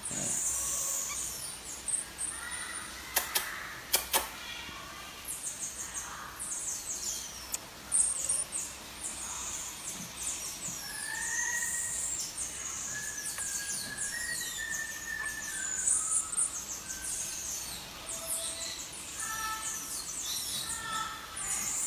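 Baby marmoset giving rapid, very high-pitched chirps and squeaks throughout, with some lower whistle-like notes in the middle and a few sharp clicks.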